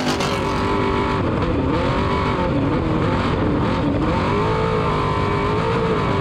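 An off-road desert race vehicle's engine running hard. Its pitch dips and climbs again several times, with the deepest dips about a second and a half and four seconds in, as the throttle is lifted and reapplied.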